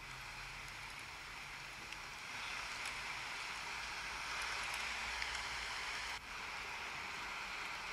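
iPhone 13's built-in Background Sounds 'Rain' noise playing, a steady rain-like hiss that gets louder about two seconds in as its volume is turned up. It dips briefly about six seconds in and cuts off near the end.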